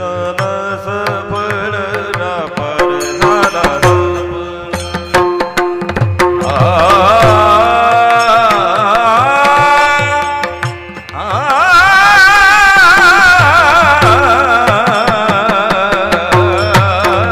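Marathi Warkari devotional song (abhang): a man sings long, wavering melismatic lines over a steady held drone note, with hand-drum strokes and sharp cymbal-like clicks keeping the rhythm. After a short dip about eleven seconds in, the voice comes back louder and higher.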